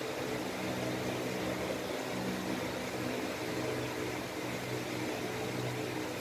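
Steady low hum with an even hiss: room background noise, with no distinct event.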